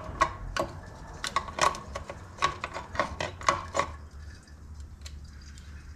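Hand tools clinking on metal while the bolts holding an automatic transmission filter are taken out: about a dozen sharp, irregular clinks in the first four seconds, then only faint handling sounds.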